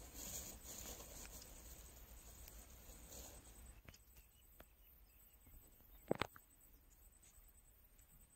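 Quiet outdoor background with faint rustling in the first few seconds, then two sharp knocks in quick succession about six seconds in.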